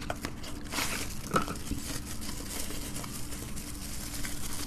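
Light crinkling and rustling of small parts being handled, with a few soft clicks about a second in, over a faint steady hum.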